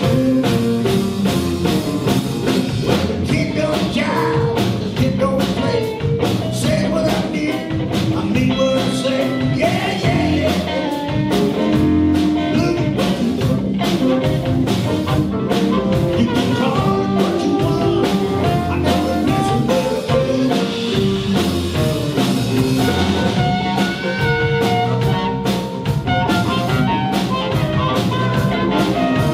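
A blues band playing, with singing over guitar and a steady drum beat; the music cuts in suddenly at the start.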